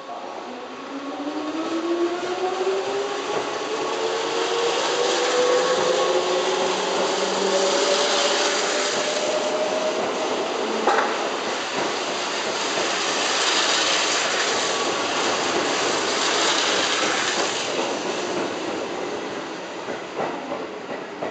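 Keihan electric commuter train pulling away from a station: a motor whine rises steadily in pitch over the first ten seconds as it accelerates, under the rumble and clatter of the cars' wheels on the rails as they pass, easing off near the end as the last car goes by.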